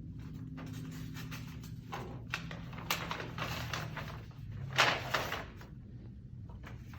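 Paper rustling and tearing as a sealed bid envelope is opened and its papers handled, in scattered noisy bursts with a few sharp clicks, loudest about five seconds in. A low steady hum runs underneath.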